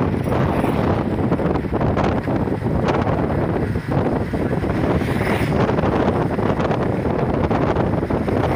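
Steady wind buffeting the microphone of a passenger on a moving motorcycle, with the motorcycle's engine and road noise underneath.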